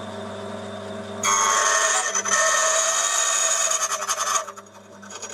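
Key-cutting machine motor running with a steady hum; about a second in, its cutter bites into the key blank with a loud rasping grind for about three seconds, cutting the notch for the first pin's depth, then the motor runs on alone.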